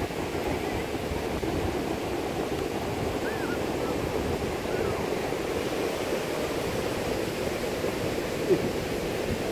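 North Sea surf breaking and washing up over the sand, a steady rushing wash, with the sea running high on a rising tide.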